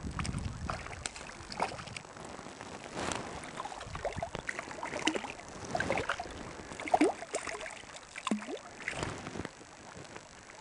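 A hooked half-pound wild brown trout splashing and thrashing in shallow water as it is drawn in to the bank and taken by hand, in irregular short splashes.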